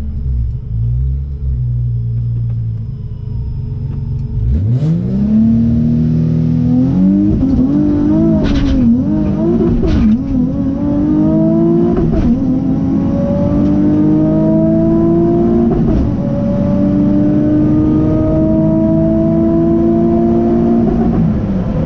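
Vortech-supercharged Nissan 350Z engine heard from inside the cabin making a drag-strip pass. It rumbles low and uneven at the line, then about four and a half seconds in it launches hard. The revs climb, drop back at each gear change through a manual gearbox, and fall away near the end as the driver backs off.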